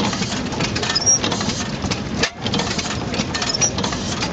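Deutz E3 stationary gas engine running, its valve gear and flywheels turning, with a busy clatter of clicks and a brief dip in loudness about two seconds in.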